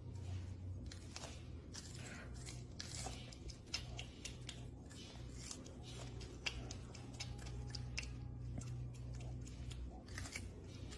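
Baby porcupine gnawing kernels off a corn cob held in its paws: crisp, irregular crunching clicks, over a steady low background hum.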